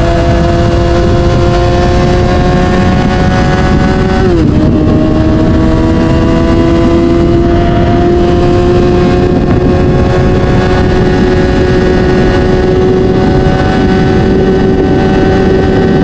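Yamaha R6's 600cc inline-four engine pulling under steady acceleration, its pitch climbing slowly, then dropping quickly about four seconds in as it shifts up a gear and climbing again. Wind noise rumbles on the microphone underneath.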